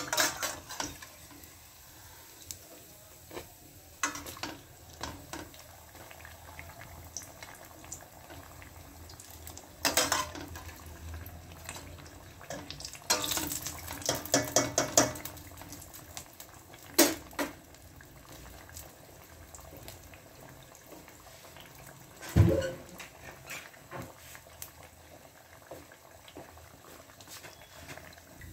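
Bread pakora deep-frying in a steel pot of oil, a steady sizzle, with a steel slotted skimmer clinking against the pot now and then. There is a quick run of clinks around the middle and a single heavier knock later on.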